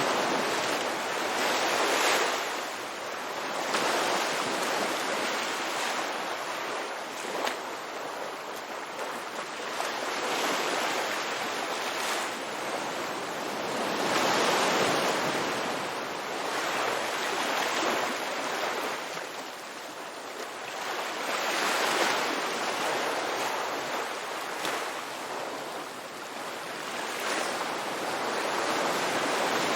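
Ocean surf on a beach: waves breaking and washing in and out, the rush swelling and fading every few seconds.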